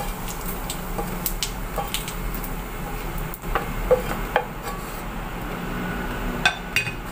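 Wooden spatula scraping and knocking against a black wok as crisp, dry fried anchovies are pushed out of it onto a plate, with scattered clicks and knocks over a steady low hum.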